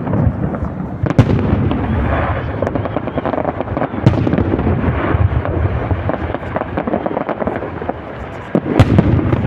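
Festive fireworks salute: sharp bangs of shells bursting about a second in, about four seconds in and near the end, over continuous crackling and rumble from other bursts.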